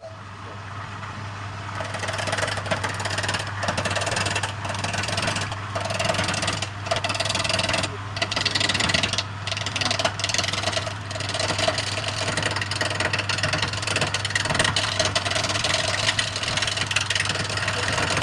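Woodturning lathe running with a steady motor hum while a turning tool cuts the spinning wood, a loud scraping hiss broken by short pauses between passes.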